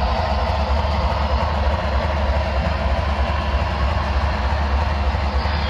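HO scale model trains running on the layout, with a steady low engine-like rumble under an even rushing.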